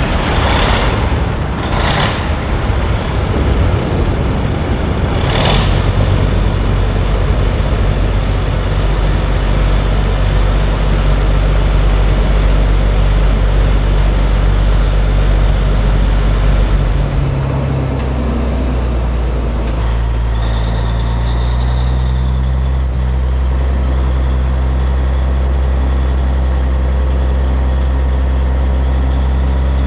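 The diesel engine of a 1984 Peterbilt 362 cabover, just fired up, running at a steady idle. There are a few sharp surges in the first few seconds, and the note shifts a little past halfway.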